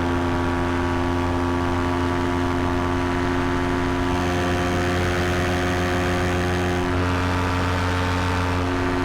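Vittorazi Moster 185 paramotor's single-cylinder two-stroke engine and propeller running steadily at full power during a climb.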